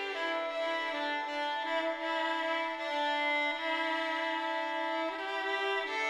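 Slow instrumental background music: a bowed-string melody of long held notes, changing pitch about once a second.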